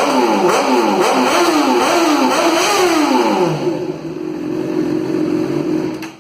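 Honda CBR 600RR inline-four engine revved several times in quick blips, each rising and falling, then settling to a steady idle; the note comes through a stock exhaust with a small notch cut in it to make it louder. The sound cuts off abruptly near the end.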